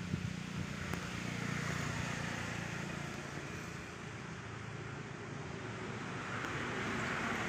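Outdoor background noise: a steady rushing sound that swells twice, about a second and a half in and again near the end, over a low hum.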